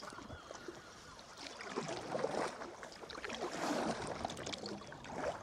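Water splashing and lapping around a sea kayak as it is paddled through calm sea, the sloshing swelling and easing with the strokes.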